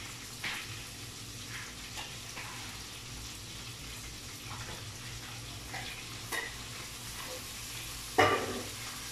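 Food sizzling as it fries in hot oil in a pan on a gas stove, with the scrape and clink of a metal spatula stirring in the pan. A loud metal clank near the end.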